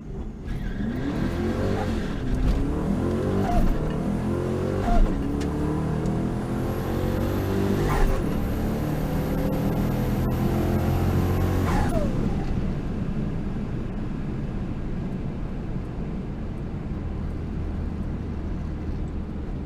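Twin-turbo 351 Windsor V8 in a Ford Ranger pulling hard down the drag strip: the revs climb again and again, broken by sharp gear shifts, through a manual gearbox. A high turbo whistle comes in midway through the pull. About two-thirds of the way in the engine lets off and the truck coasts down.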